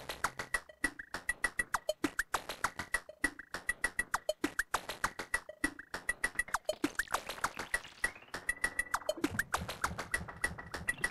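Korg volca drum playing a fast sequenced pattern of short, clicky electronic percussion hits, about four or five a second. Many hits drop quickly in pitch, and a high blip repeats through the pattern.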